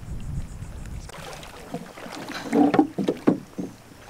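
Shallow water sloshing and splashing around a wader, with wind rumble on the microphone. From about a second in come a run of short splashes, the loudest in the second half.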